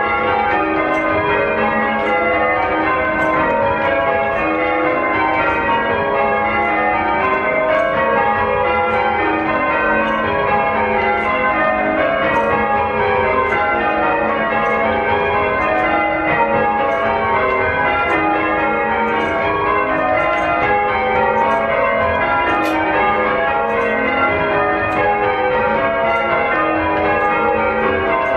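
Church bells being rung in a continuous peal, one stroke quickly following another so that the ringing tones overlap into a steady, unbroken stream.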